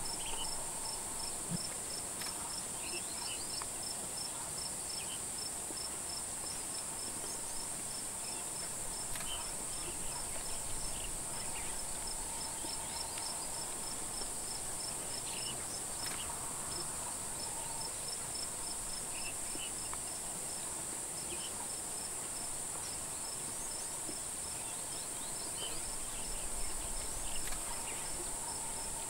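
Bush insects: a steady high-pitched drone with a chirp repeating about three times a second, and a few scattered brief chirps over it.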